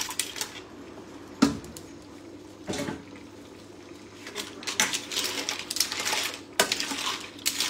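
Metal serving spoon clinking and scraping against a stainless steel pan as pasta with mussels and clams is stirred and scooped, the shells clattering. There are two sharp knocks in the first three seconds, then busier clatter through the second half.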